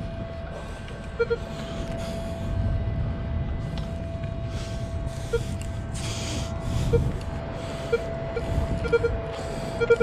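Metal detector sweeping over beach sand: a steady threshold tone with short low beeps as the coil passes targets, the beeps coming more often near the end, over a low rumbling noise.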